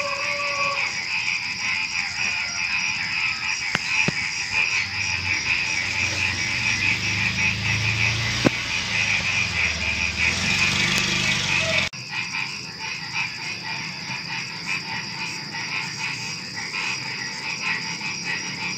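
Dense chorus of many frogs croaking, a continuous rapid pulsing, over a steady high trill of crickets. A low rumble rises under it in the middle, and the whole chorus drops slightly in level about twelve seconds in.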